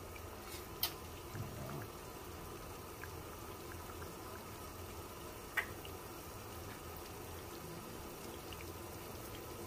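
Thick bolognese sauce simmering in a frying pan over a gas burner: a low steady hiss with a few sharp pops, the loudest about a second in and another past the middle.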